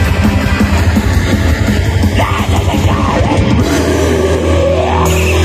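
Metal band playing live: loud distorted guitars and drums, in the closing seconds of a song.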